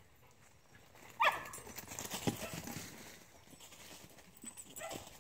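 A dog gives one sharp bark about a second in, followed by a few scattered knocks and a faint short whine near the end.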